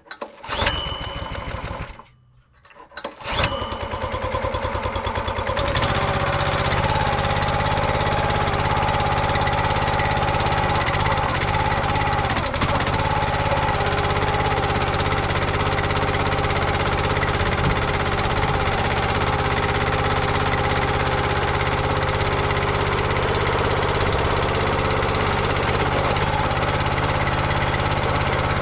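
Small gasoline engine of a 27-ton log splitter starting a few seconds in and settling into a steady run about six seconds in, driving the hydraulic pump while the freshly resealed cylinder is tested.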